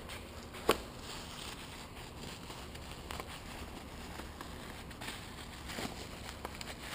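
Plastic bubble wrap and packing film being handled and crinkled, with one sharp knock less than a second in and a few fainter clicks later.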